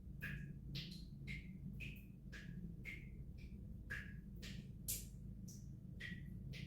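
Water drops falling one by one from a tap left dripping to keep the pipes from freezing. Each drop lands with a short plink at a different pitch, about two a second at uneven intervals, over a low steady hum.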